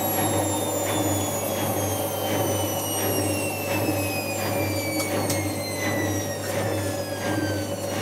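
Indesit IWC6165 washing machine spinning, its motor whine falling slowly in pitch as the drum winds down, over a steady low hum with a faint regular beat a little under twice a second.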